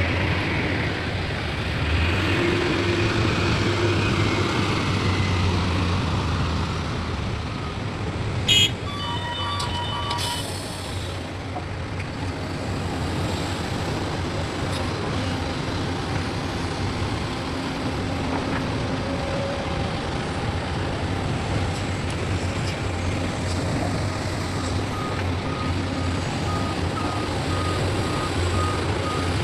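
Heavy diesel machinery of a truck and excavator running steadily, with a sharp click and a short burst of hiss about nine to ten seconds in. Reversing beeps sound about twice a second near the end.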